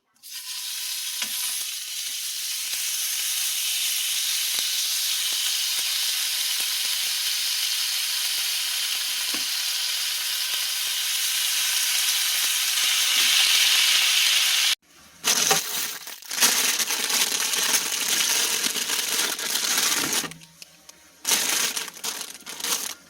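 Food sizzling in a hot pan: a steady crackling hiss that cuts off suddenly about fifteen seconds in, then returns in shorter stretches with brief gaps.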